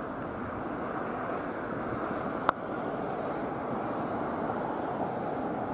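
A single sharp crack of a cricket bat striking the ball about two and a half seconds in, over steady wind noise on the microphone.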